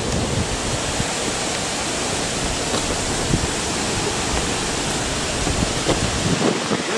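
Steady hiss, with a few soft low knocks in the last couple of seconds.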